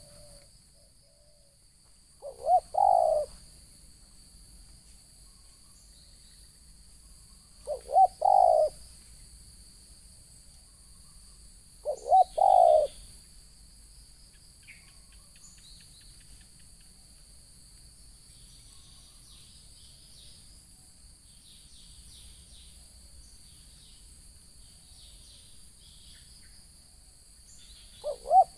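Spotted dove cooing: four calls spaced several seconds apart, each a couple of short notes followed by a longer coo, the last near the end.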